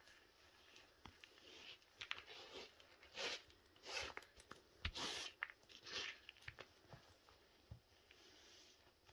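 Leather boots crushing and grinding a chocolate yule log cake on a hard floor: faint, irregular crunching and crumbling of the sponge and its chocolate coating, thickest in the middle.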